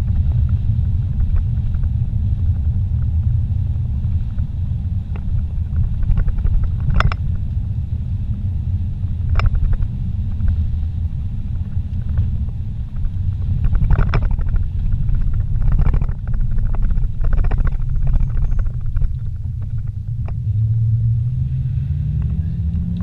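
Car driving on a worn road, heard inside the cabin: a steady low rumble of tyres and engine, with a few short knocks and rattles. Near the end, a pitched hum rises.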